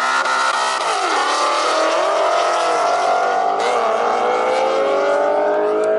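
Two cars launching together at full throttle and accelerating hard, engines revving up through the gears. The pitch climbs, drops at a shift about a second in, then climbs again with another shift near the end.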